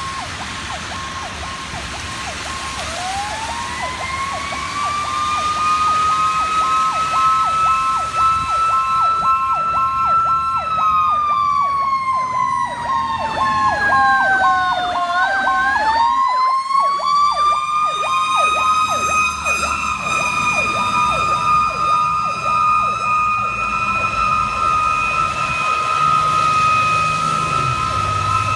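Fire engine sirens on an emergency response, growing louder over the first few seconds. A siren winds up to a steady wail, sags in pitch about halfway through, then winds back up and holds. Under it runs a fast electronic yelp.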